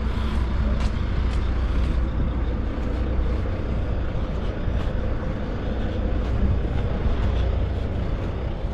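Steady low rumble of outdoor background noise, even throughout, with a faint hum and a few light ticks.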